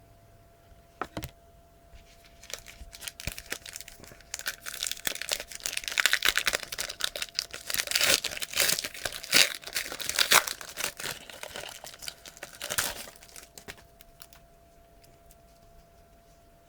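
Trading card pack wrapper being torn open and crinkled by hand. The crackling rustle builds a few seconds in, is loudest in the middle, and stops near the end.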